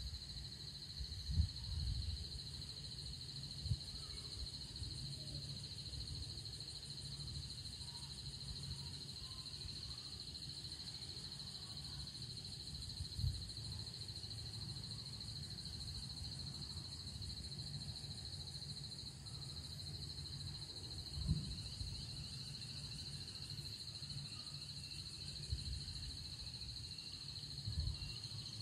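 Steady high-pitched insect chorus trilling without a break. Low rumbling wind buffets the microphone, with stronger gusts about a second in, near the middle, about three-quarters through and near the end.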